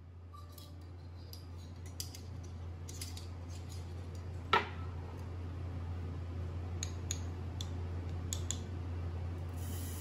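Metal spoon clinking against a drinking glass while scooping chia seeds: several light taps and one sharper, ringing clink about four and a half seconds in, over a steady low hum.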